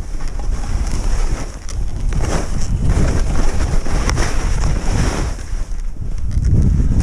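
Wind buffeting the action camera's microphone during a ski descent, a heavy steady rumble, with skis hissing and scraping over the snow in repeated surges as the skier turns.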